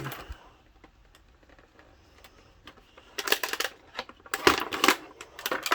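Action-figure plastic packaging and twist ties being handled: after a quiet stretch, a quick run of crinkles and clicks starts about three seconds in.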